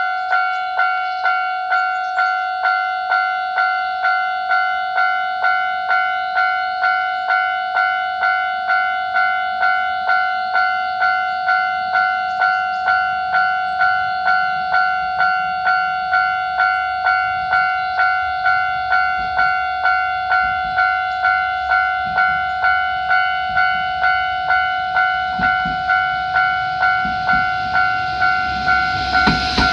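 Japanese level-crossing warning bell ringing steadily, an electronic ding repeating just under twice a second. In the last few seconds the rumble of an approaching diesel railcar builds beneath it.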